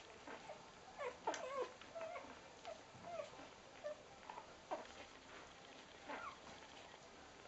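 Three-day-old rough collie puppies nursing, giving small squeaks and whimpers in short rising and falling glides, the loudest cluster about a second in, amid soft suckling clicks.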